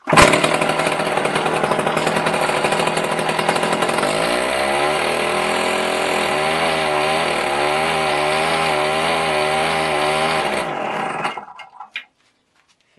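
Small pull-start starter engine on a T-25 tractor catches on the pull and runs at high revs. About four seconds in, a lower, wavering note joins it as it cranks the D-21 diesel, which does not fire. The noise stops about eleven seconds in.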